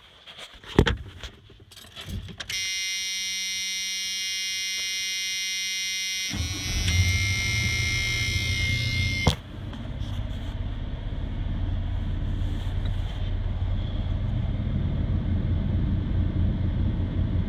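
A few clicks, then the old pickup's key-on warning buzzer sounds steadily while the starter cranks the cold engine in a hard cold start at about 21 degrees. The buzzer cuts off with a click and the engine runs on with a steady low, pulsing idle.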